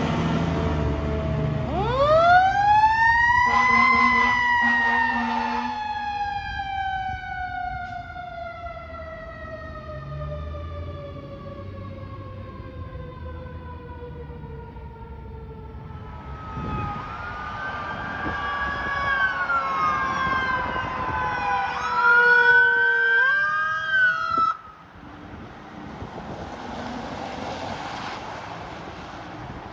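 Fire truck's mechanical siren winding up to a high wail and then slowly winding down, with a short burst of air horn at its peak. Later an electronic siren wails and yelps, then cuts off suddenly, leaving traffic and wind noise.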